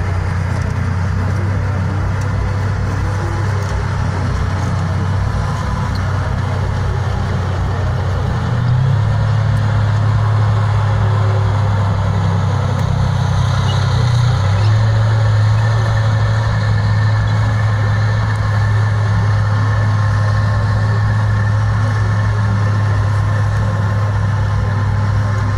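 V12 diesel engine of a T-55-based armoured recovery tank running as it drives across the field: a steady low engine drone whose pitch steps up slightly twice, about nine and fourteen seconds in.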